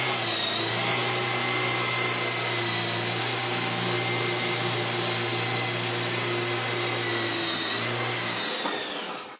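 Esky Lama V4 coaxial RC helicopter's twin small electric motors and rotors whining steadily in a hover. Near the end it sets down and the motors spool down, the hum stopping and the whine fading out.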